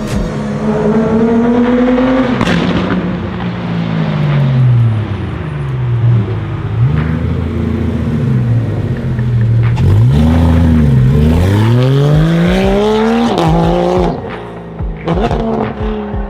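Tuned Japanese sports car's engine revving and accelerating, its pitch climbing and dropping several times as it goes up and back down, with a long climb from about ten seconds in that breaks off sharply. A few sharp cracks near the end.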